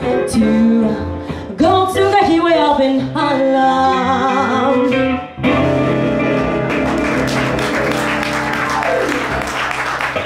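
Small jazz band, with a female singer, archtop guitar, electric bass, keyboard and drums, playing the closing sung phrases of a swing tune. About five seconds in, the band hits and holds the final chord, with cymbals ringing out over it.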